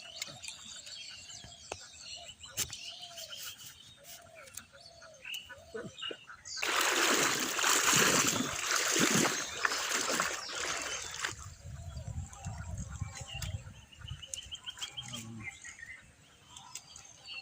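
Water splashing loudly for about five seconds in the middle, as the river is disturbed during net fishing, with small birds chirping and calling before and after.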